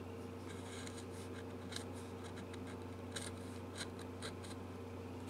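Hand chisel paring the soft-wood heel cap of a mahogany guitar neck heel: a scatter of short, light scrapes and ticks, a few sharper ones past the middle, over a steady low hum.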